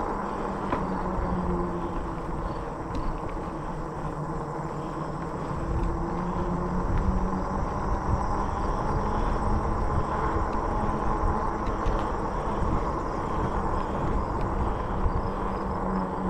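A RadRover 5 fat-tire electric bike riding along a paved trail: a steady rolling rumble with a faint hum in it. It gets somewhat louder from about six seconds in.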